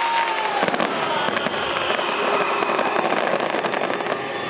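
Aerial fireworks bursting and crackling, with a dense cluster of sharp cracks about a second in.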